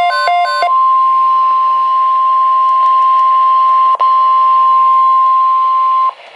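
NOAA Weather Radio EAS alert over a radio receiver: the last fraction of a second of the buzzy, rapidly alternating SAME data header, then the steady single-pitch 1050 Hz warning alarm tone, which drops out for an instant about four seconds in and cuts off about six seconds in. A faint hiss with scattered clicks sits underneath.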